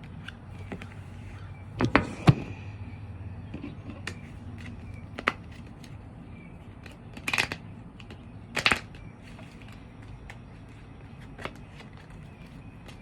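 A deck of tarot cards being shuffled by hand, with a handful of sharp card snaps scattered through it, the loudest two close together about two seconds in.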